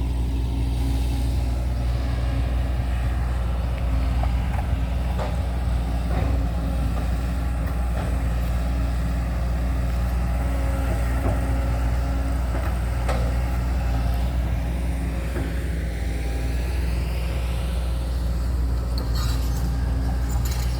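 Backhoe's diesel engine running steadily, with a few sharp knocks and a rising whine about three quarters of the way through.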